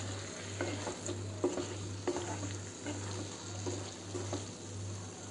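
Spatula stirring paneer, onion and capsicum in masala in a non-stick kadai: light scraping taps on the pan about twice a second over a soft sizzle as the spices, paneer and a little added water are mixed.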